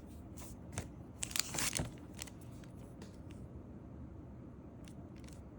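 Booster pack packaging being handled: a cluster of short, light crinkles and crackles in the first two seconds, then only faint room hum.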